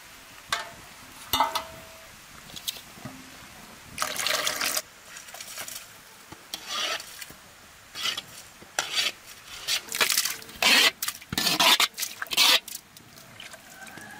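Rice being washed by hand in a metal pot of water: irregular swishing and splashing as the grains are rubbed and stirred, with a few light knocks in the first few seconds.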